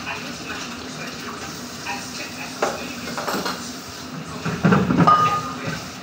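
Tap water running into a stainless steel sink while a ceramic plate is scrubbed by hand. The plate knocks and clatters against the sink a few times, loudest just before five seconds in, with a brief ring.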